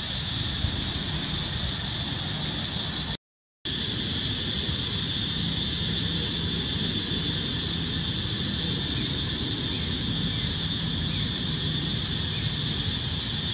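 Steady high-pitched droning of insects, over a low outdoor rumble. The sound cuts out briefly about three seconds in. From about nine seconds in, a run of short, high, rising chirps comes every half second or so.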